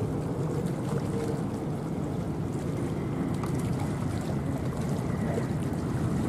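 Distant, steady low rumble of a Boeing 777-300ER's GE90 jet engines as the airliner rolls out after touchdown, mixed with wind on the microphone.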